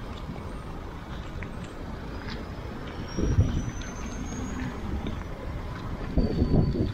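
Road traffic at a city intersection: a steady hum of passing vehicles, with two brief low rumbles about three and six seconds in, and a faint high whine that slowly rises in pitch partway through.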